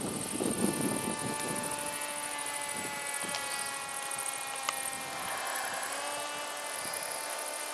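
Radio-controlled model aircraft in flight, its motor giving a steady whine that drops slightly in pitch about five seconds in.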